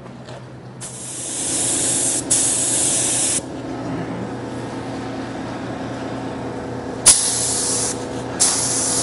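Gravity-feed spray gun hissing as its trigger is pulled to spray a coat of paint: two passes of about a second and a half each in the first few seconds, a pause, then two shorter passes near the end. A steady low hum runs underneath.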